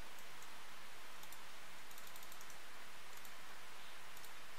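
Faint scattered clicks of a computer mouse and keyboard over a steady background hiss.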